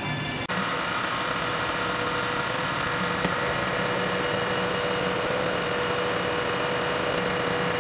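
Milling machine spindle running steadily, a mechanical hum with a steady whine, which comes up abruptly about half a second in.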